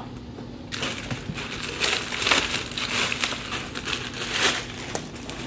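Plastic courier mailer bag crinkling and rustling as it is handled, starting about a second in.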